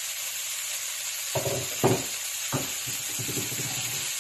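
Vegetables and spice sauce sizzling steadily in a frying pan. About a second and a half in, a wooden spatula starts stirring, knocking and scraping against the pan.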